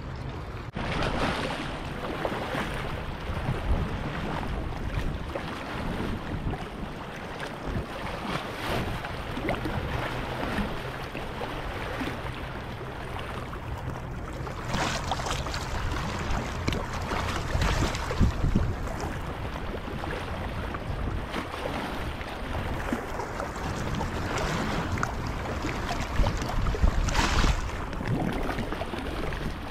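Wind buffeting the microphone over water lapping around a shallow rock shelf, with a low steady hum through the first half.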